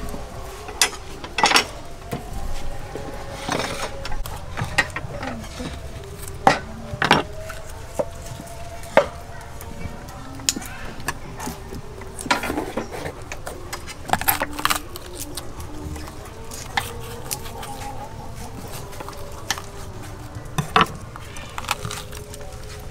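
Kitchen knife cutting and peeling vegetables on wooden chopping boards: irregular sharp taps and knocks of the blade against the board, a few louder than the rest.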